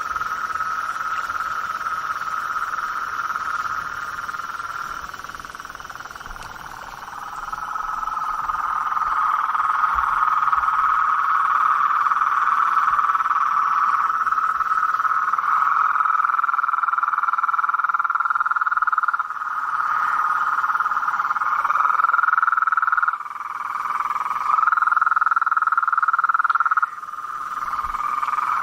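Dense chorus of frogs calling in a marsh at night, a continuous high-pitched wall of calls that swells louder after the first few seconds and drops out abruptly twice in the second half.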